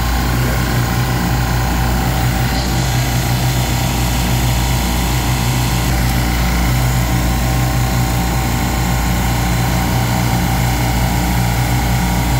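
Loud, steady hum and drone of running refrigeration machinery on a compressor rack, unchanging throughout.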